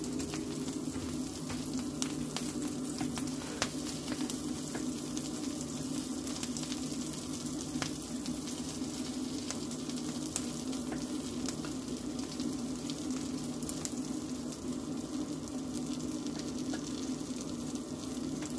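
Butter sizzling in a hot nonstick griddle pan, a steady hiss with many small crackling pops, as pancake batter is scooped in. A steady low hum, the air fryer running, sits underneath.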